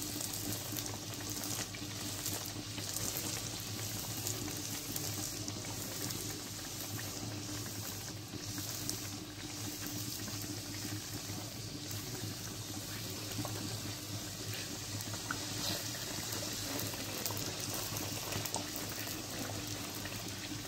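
Dal puri (lentil-stuffed flatbreads) deep-frying in hot oil: a steady sizzle with fine crackling.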